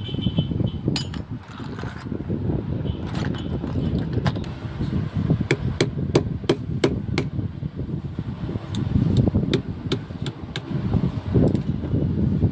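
Hammer tapping on metal while a car ignition lock is being dismantled, in two quick runs of sharp taps about four a second, one around the middle and one a few seconds later, with scattered single knocks between. A steady low rumble runs underneath.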